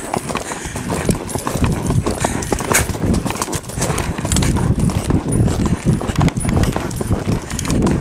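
Hoofbeats of a Tennessee Walking Horse galloping on a dirt and gravel trail: a rapid, continuous drumming of hooves.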